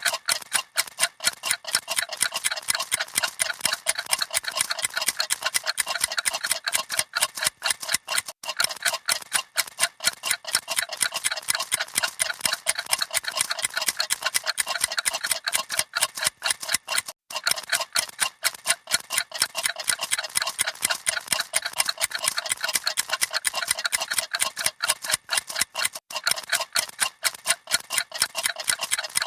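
Several clocks ticking at once, their ticks overlapping into a rapid, dense, uneven clatter of light clicks.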